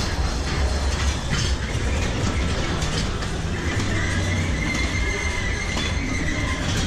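Ghost train car rolling on its track with a low rumble and a few knocks, its wheels letting out a long high squeal from about halfway in until near the end.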